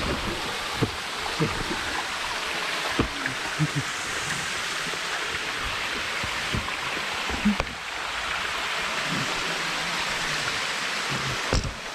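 Waterfall rushing steadily, with scattered short, low knocks close by.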